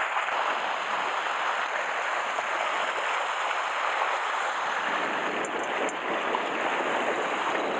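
Sea waves washing steadily against shore rocks, an even rushing hiss without distinct breaks.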